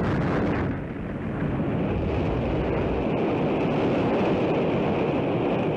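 Atlas-Centaur rocket exploding in flight: a deep rumble that drops off under a second in, then a steady rushing roar of the blast and fire.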